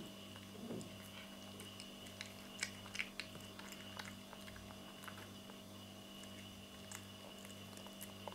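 A cat chewing cat food from a plate: soft, irregular clicks and smacks, loudest about three seconds in. A faint steady hum runs underneath.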